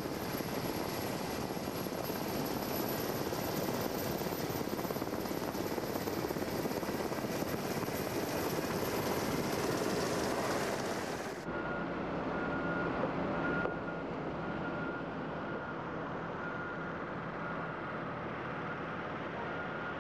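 Helicopter engine and rotor noise, a loud dense rush, which cuts off suddenly about eleven seconds in. A quieter steady machinery hum with a faint high steady tone follows.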